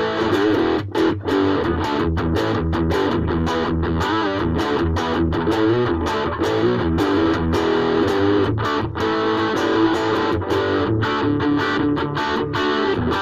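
Ibanez AXS42 electric guitar fitted with a vintage tone capacitor, played through an amplifier as a steady run of picked and strummed chords.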